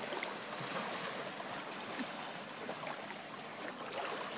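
Shallow lake water lapping and sloshing, with light splashes around a child's inflatable float.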